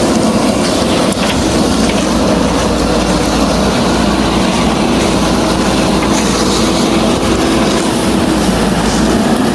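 Heavy construction machinery running steadily: a diesel engine's continuous noise with a held humming tone and no clear changes.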